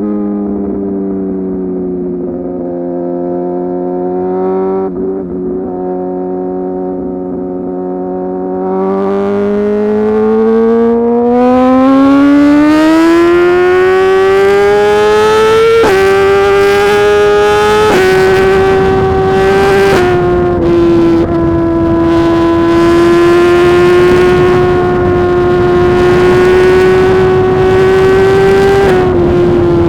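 2018 Suzuki GSX-R 1000 R's inline-four running through a full titanium SC-Project exhaust. It holds low, slightly falling revs, then accelerates hard in a long rising climb, with short breaks in the note at gear changes partway through, and then runs steadily at high revs.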